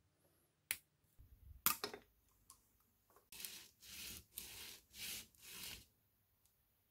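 Diagonal cutters snip a small black plastic part with a sharp click, followed by a few smaller clicks. Then the part is rubbed back and forth on sandpaper: about five scratchy strokes in a steady rhythm.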